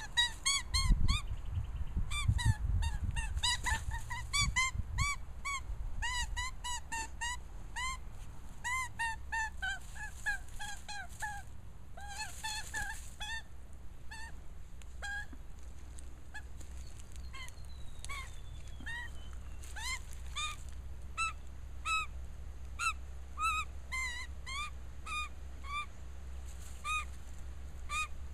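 Animal calls: a stream of short, nasal squawks, several a second at first and sparser later. Low scuffling thumps come during the first five seconds.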